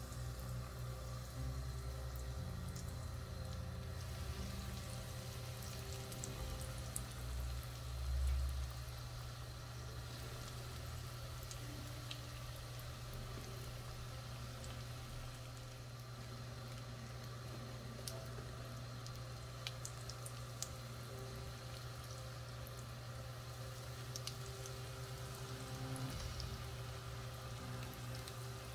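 Breaded rice paper rolls shallow-frying in canola oil in a nonstick pan: a steady sizzle with many small scattered pops, over a low steady hum.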